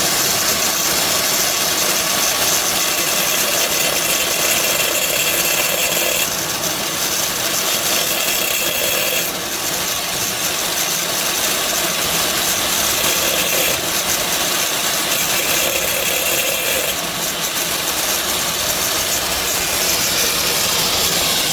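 Angle grinder running with its disc cutting into a 10 mm porcelain tile, making shallow cuts inside a marked square without going through. Its tone and loudness shift several times as the disc moves from one cut to the next.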